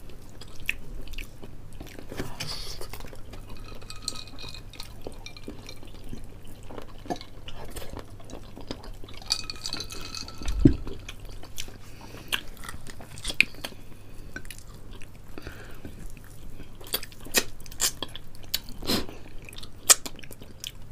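Close-miked chewing of fried chicken, with scattered small mouth and finger clicks. There is one heavier low thump about halfway through.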